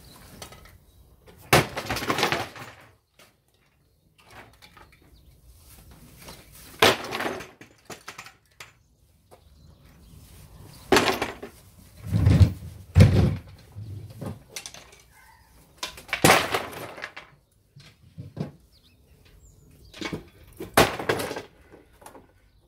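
Wooden flat-pack furniture being broken apart by hand, its panels cracking and clattering down onto paving slabs. The loud cracks and crashes come every few seconds, about eight in all.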